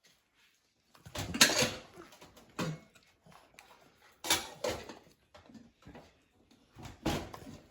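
A dog eating from a dish: irregular bursts of chewing and clatter.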